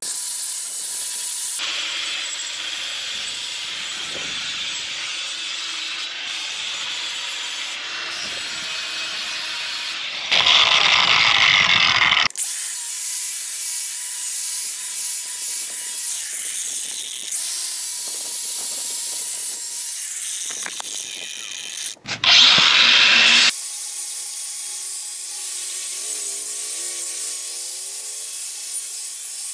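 Angle grinder with a flap disc grinding down welds on a steel frame, running loud and steady in several stretches that change abruptly. Two short bursts, about ten and twenty-two seconds in, are louder and higher-pitched as the disc bites harder.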